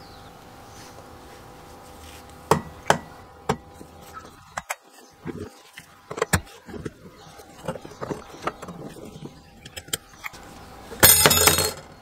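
Metal clicks and clinks as the kerosene stove's pot stand is taken apart by hand, its rod legs and ring knocking together, with a loud rapid clattering burst near the end.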